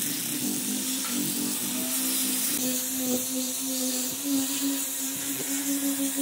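Angle grinder fitted with a sanding disc running steadily while sanding wood: a steady motor hum under the hiss of the abrasive on the grain.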